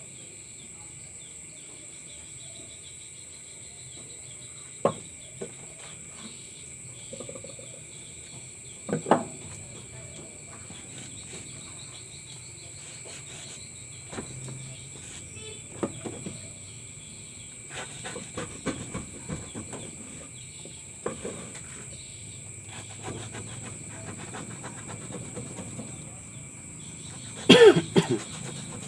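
Steady high insect trill, like crickets, with scattered light clicks and knocks and a short louder sound near the end.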